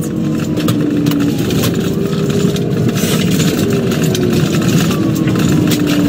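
Police patrol vehicle's engine and road noise inside the cabin, driving at speed. The engine note slides down a little around the middle and rises again near the end as it accelerates.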